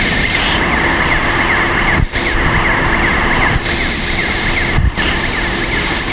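Loud, steady industrial machinery noise: a constant drone with a high whine and a fast rattling ticking above it, cutting out for an instant twice.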